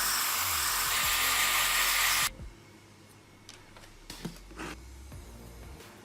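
A loud, steady hiss from a tool, with background music underneath, cuts off suddenly about two seconds in. The music carries on, with a few light knocks.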